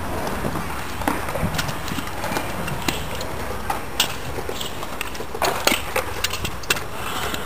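Kick-scooter wheels rolling on skatepark concrete, with irregular clacks and knocks from the wheels and deck hitting ledges and joints; the knocks come thicker in the second half.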